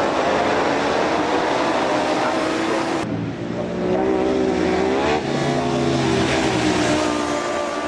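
Superstock 1000 racing motorcycles running at high revs, their engine notes rising and falling through gear changes. The sound changes abruptly about three seconds in.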